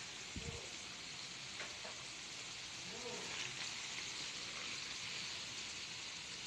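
Bananas deep-frying for banana cue in a wide pan of hot oil: a steady sizzle with a few faint crackles.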